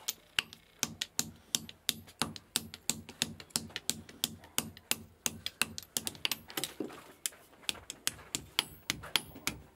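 Hand hammer striking red-hot iron on a steel anvil in a quick, steady run of ringing blows, about three a second, as an axe head is forged from rusted iron.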